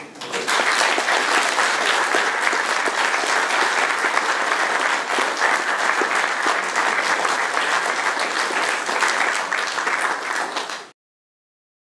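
Audience applauding steadily, a dense clatter of many hands clapping, which cuts off suddenly about a second before the end.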